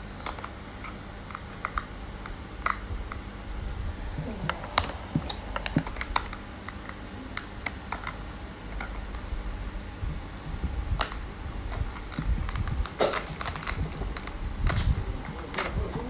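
Irregular light plastic clicks and taps as a toy plastic knife and velcro play-food grapes are handled and cut on a plastic cutting board.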